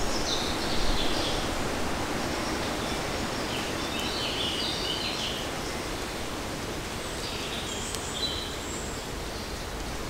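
Steady hiss of light rain and wind in forest leaves. A small songbird sings short phrases of high chirping notes three times: near the start, about halfway, and again near the end.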